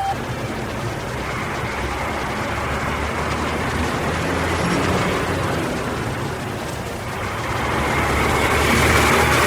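City bus diesel engine running steadily with a low hum, growing louder near the end.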